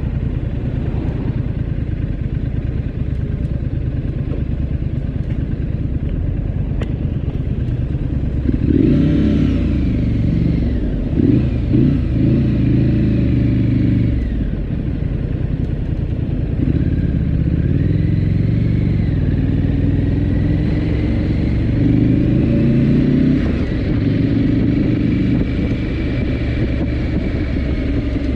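Triumph Scrambler 900's parallel-twin engine running while riding in city traffic, picking up speed twice: once about a third of the way in and again past the middle.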